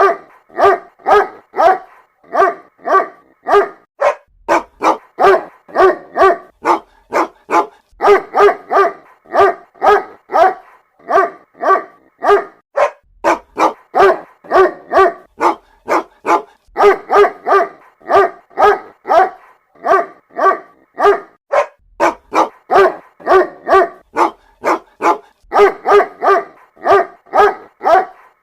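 A mother dog barking to call her puppies: short, pitched barks about two a second, in runs with a brief pause every few seconds.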